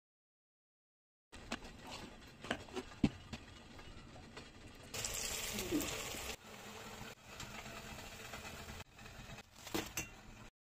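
Vada batter frying in a pan of hot oil: a short stretch of sizzling about five seconds in. Around it are light clicks and knocks of kitchen handling, with the sound dropping out abruptly between clips.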